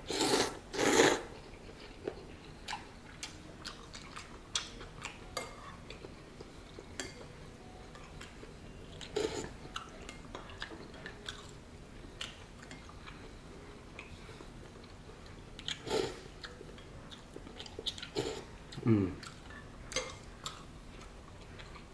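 A man slurping ramen noodles: two slurps in the first second, the loudest sounds, then chewing with scattered small clicks of chopsticks and a spoon against a ceramic bowl, and a few more slurps later on.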